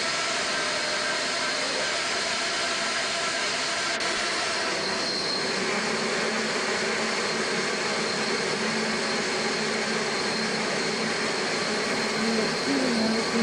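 Home-built electric bandsaw running steadily, its motor and blade giving a continuous mechanical noise with a faint high whine.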